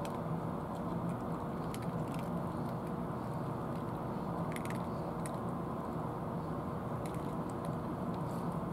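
Cats crunching dry kibble: short sharp crunches at irregular intervals, a few at a time, over a steady low background rumble.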